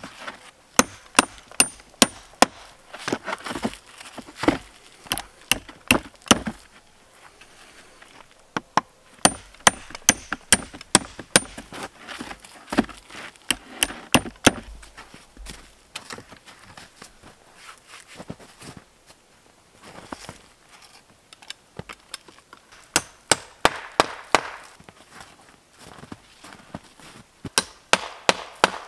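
Nails being driven into weathered pallet wood with the back of a hatchet: runs of sharp knocks with a slight metallic ring, about two or three a second. There are four runs, with a long pause in the middle.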